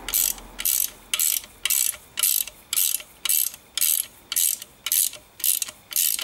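Ratchet spanner tightening nuts down on bolts, its pawl clicking in a short run on each back stroke, about two strokes a second.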